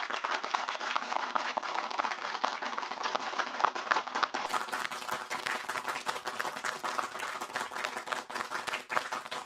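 Applause: a dense, even patter of many hands clapping.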